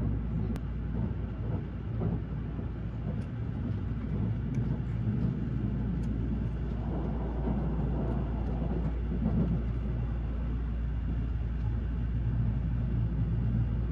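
Train running, heard inside the passenger car: a steady low rumble with a light hiss. A few faint ticks and rustles come as disposable chopsticks are slid out of their plastic sleeve.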